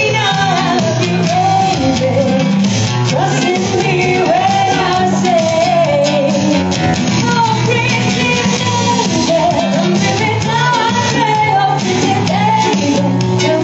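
A song performed by a singer with guitar accompaniment, the sung melody carried over a steady band backing.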